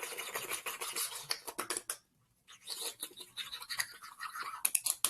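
A person making weird mouth noises: a rasping hiss for about two seconds, a brief pause, then more hissing and a run of quick clicks near the end.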